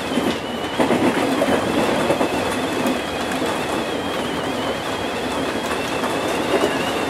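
JR 201 series electric train running, heard from the driver's cab: a steady rumble of wheels and rail, with a thin wavering high whine over it and a few faint clicks.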